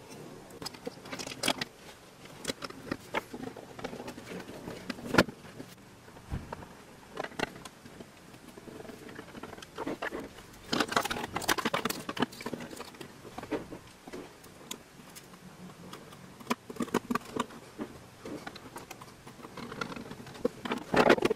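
Plastic parts of a touch-free soap dispenser being handled and fitted together: scattered light clicks, taps and scrapes. There is one sharp click about five seconds in and a busier run of clicking around ten to twelve seconds in.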